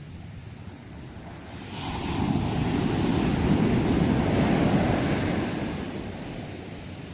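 A single ocean wave breaking and washing in: the surf swells up about two seconds in, holds for a few seconds and fades away, over a low steady rumble of the sea.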